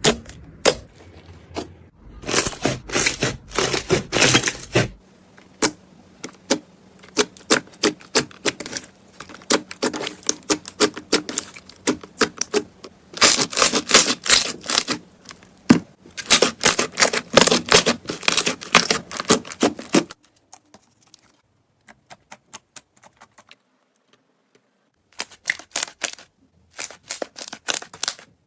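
Slime being squeezed and pressed, with rapid runs of crackling pops as the air bubbles in it burst. The popping comes in dense flurries with short pauses, goes nearly quiet after about 20 seconds, then starts again near the end.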